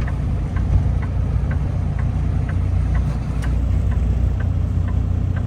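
Semi truck's diesel engine running at low speed, heard from inside the cab as a steady low rumble, with a light ticking about twice a second.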